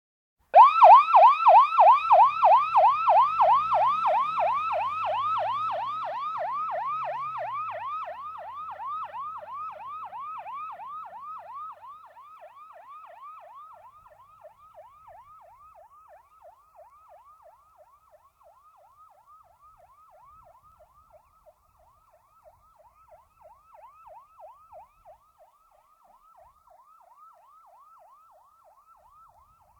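Emergency-vehicle electronic siren on the yelp setting: a fast rising-and-falling wail that repeats about four times a second. It starts about half a second in, is loudest at first and fades steadily until it is faint near the end.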